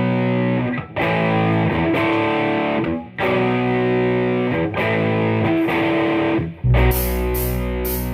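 Rock song intro: a guitar with some distortion plays a few held chords, changing every couple of seconds. Near the end, heavy bass and a steady beat come in and the band plays on together.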